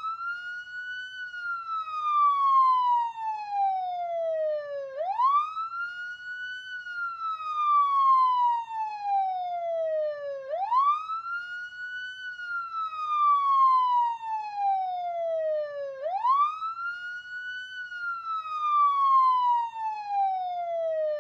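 A siren wailing: its pitch climbs quickly, then falls slowly, over and over, about every five and a half seconds.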